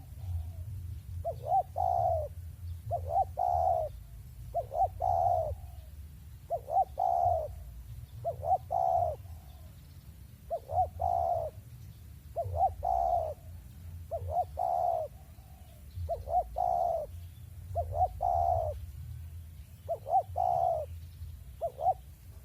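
Spotted dove (tekukur) cooing: short phrases of a few low coo notes, repeated steadily every one and a half to two seconds.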